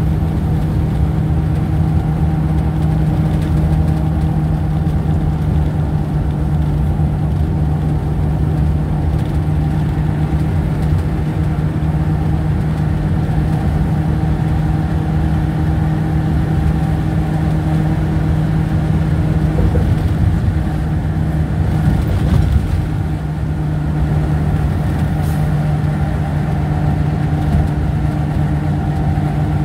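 Engine and road noise heard from inside a vehicle cruising at highway speed: a steady low drone.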